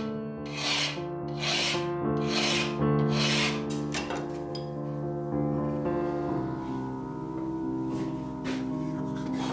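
Hand file rasping across the steel blade of an old square held in a vise: four strokes about a second apart, then the filing stops.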